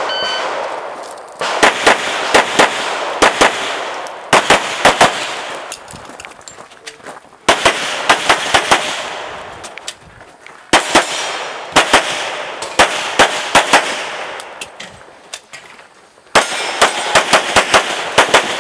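Pistol fire in rapid strings of several shots each, about five strings with short pauses between them as the shooter moves between positions.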